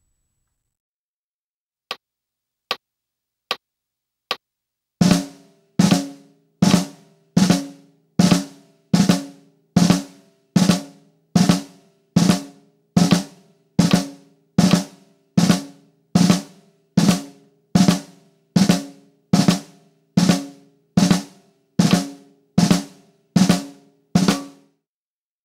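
Drag ruffs played on a drum kit: four short count-in clicks, then an even run of drag strokes, two quick grace notes before each main stroke, hands alternating, a little over one stroke a second, each stroke ringing briefly.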